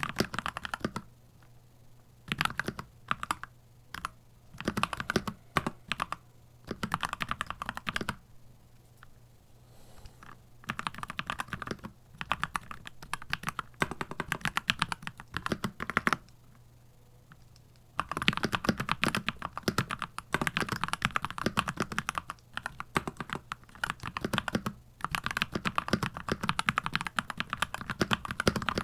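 Keychron C2 Pro 8K mechanical keyboard being typed on in bursts of fast keystrokes separated by short pauses, its keys giving a deep clacking "thock".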